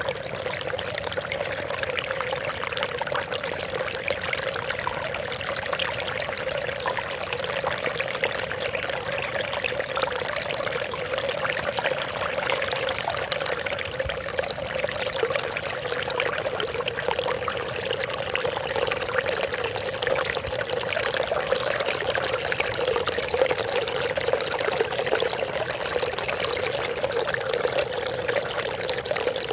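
Trickling, splashing water running steadily without a break.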